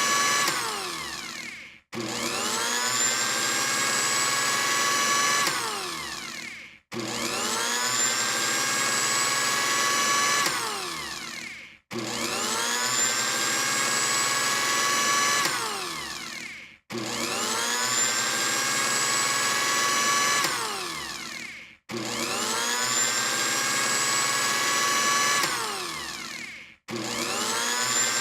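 Electric blender motor switched on and off over and over. Each time its whine rises to speed, runs steadily for about three seconds, then falls away as it spins down and stops, before starting again about every five seconds.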